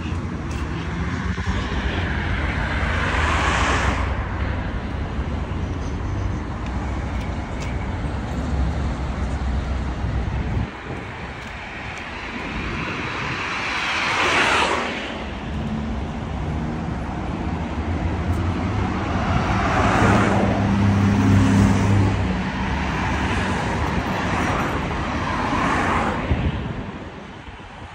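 Cars driving past one after another on a wet street, tyre hiss swelling and fading with each pass, about four passes. A steady low rumble runs under the first part and cuts off suddenly about ten seconds in.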